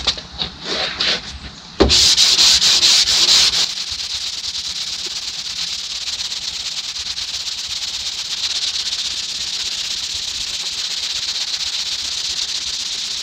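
150-grit sandpaper sanding glaze filler on a steel car door panel. A few short scuffs come first; about two seconds in a loud sanding rasp starts suddenly, then settles to a steady, even sanding hiss from about four seconds in.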